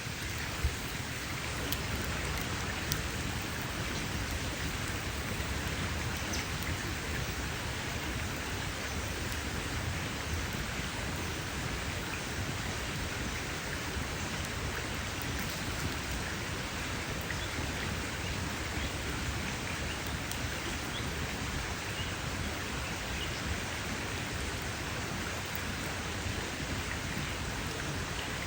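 Campfire crackling: a steady hiss of burning wood with scattered small snaps and a few sharper pops in the first seconds.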